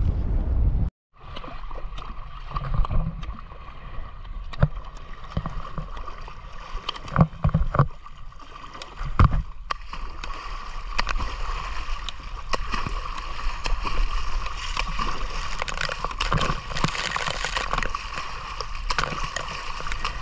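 Sea water sloshing and gurgling, with scattered sharp clicks and a few louder knocks. The sound drops out abruptly for a moment about a second in.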